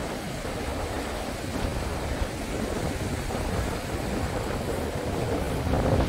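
Steady rush of wind on the microphone mixed with the wash of ocean surf, with no distinct events.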